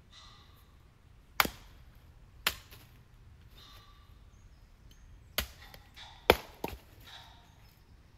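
Five sharp knocks at uneven intervals, the last two about half a second apart.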